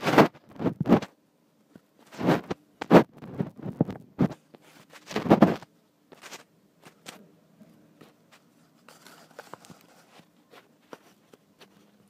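Irregular rustling and knocking, loud and closely spaced for the first six seconds, then only scattered faint ticks and a soft rustle.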